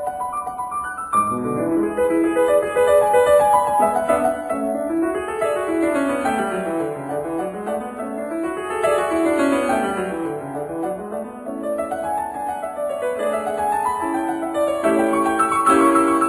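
Background piano music: flowing runs of notes that sweep up and down, then repeated chords near the end.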